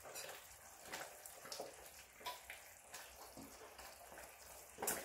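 Kare kare stew simmering faintly in a stainless steel saucepan on an electric hot plate, a low bubbling hiss with a few soft taps of a metal spoon in the pan early on, and a sharper knock near the end.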